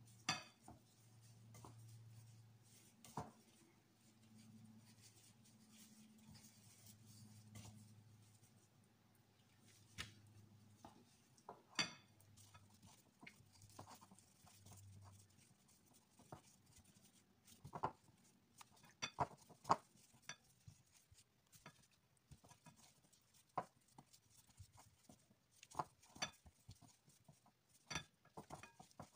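Faint soft handling sounds of plastic-gloved hands rolling raw beef cubes in flour in a glass bowl and setting them down, with scattered light taps and clicks that come more often in the second half. A faint low hum runs under the first half and stops about halfway through.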